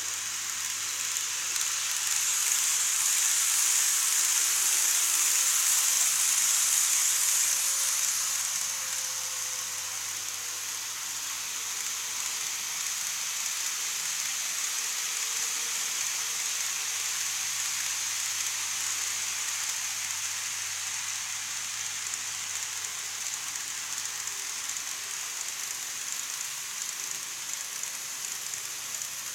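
N-gauge model trains running on plastic viaduct track: a steady hiss of wheels rolling on the rails with a faint motor whine, loudest for a few seconds near the start as a train passes close, then settling lower.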